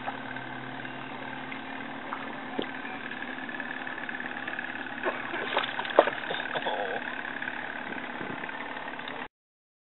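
A boat's motor idling steadily, with a few sharp knocks about five to seven seconds in, the loudest about six seconds in. The sound drops out completely for about a second near the end.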